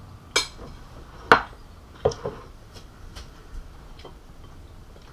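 Cutlery clinking against ceramic bowls and plates during a meal: about eight short, sharp clinks at irregular intervals, the loudest about a second in.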